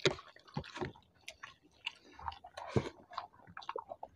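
Close-miked eating: chewing and wet mouth smacks on mouthfuls of rice and vegetable curry, with squishing as fingers mix the rice on the tray. Many short, irregular clicks and smacks.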